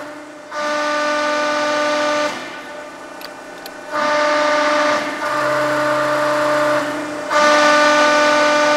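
Cincinnati hydraulic CNC press brake cycling, its hydraulic system whining in a steady, horn-like tone during each ram stroke. The whine comes in three spells of about two seconds with quieter gaps between, starting about half a second in, around four seconds in and past seven seconds.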